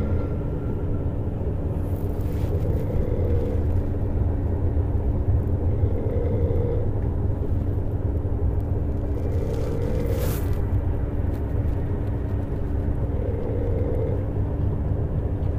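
An elderly woman snoring, one slow snore about every three and a half seconds, over the steady low rumble of a moving bus.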